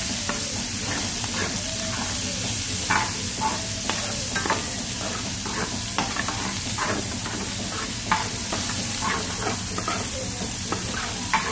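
Chopped onion and garlic sizzling in hot oil in a wide steel pan, sautéing toward golden brown and translucent. A metal utensil scrapes and knocks against the pan in short, irregular strokes as they are stirred.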